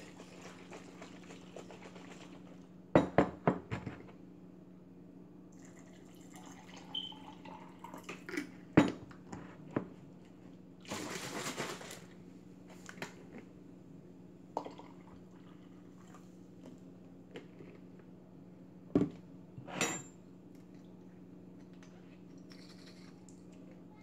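Drink being mixed on a kitchen counter: glass bottles and a drinking glass clink and knock as they are handled and set down, and juice is poured into a glass. A cluster of sharp knocks comes about three seconds in and a rush lasting about a second near the middle, over a steady low hum.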